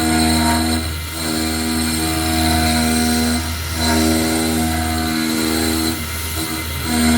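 CNC milling machine running a cut in cast iron: a steady low hum under a motor whine that holds a pitch for a second or two, then steps to another as the machine's moves change.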